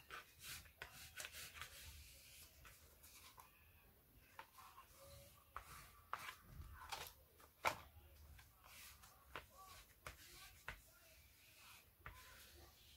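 Faint, irregular scratchy strokes of a bone folder rubbed over card stock to press a freshly glued page flat, with light ticks of paper being handled.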